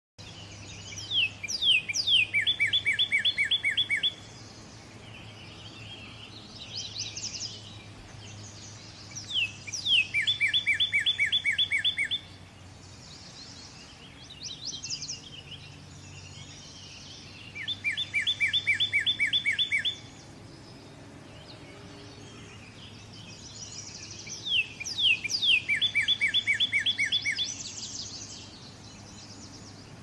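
Male northern cardinal singing four phrases about eight seconds apart. Each phrase is a couple of steeply falling whistles followed by a quick run of repeated notes, several a second. Softer bird chirps come between the phrases.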